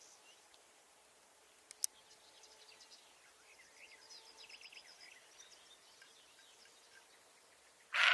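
A roe deer doe barks once, loud and short, near the end, over faint bird chirping.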